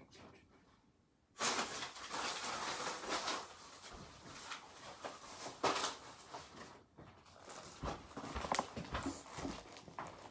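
Off-camera kitchen handling sounds: rustling with scattered knocks and clicks as things are fetched and moved about, starting abruptly about a second and a half in after near silence.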